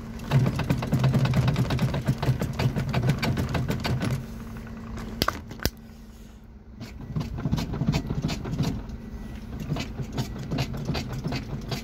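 Loose bus driver's seat rattling and knocking rapidly as the bus drives, over the low hum of the engine, easing off for about a second midway. The knocking is the play in the seat mounting that two workshop visits have not cured.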